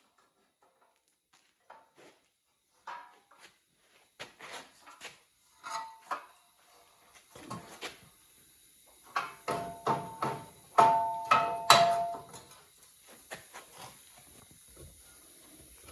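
Scattered clinks and knocks of steel parts and tools being handled, getting busier in the second half, with a few louder metallic strikes that ring briefly about two-thirds of the way through.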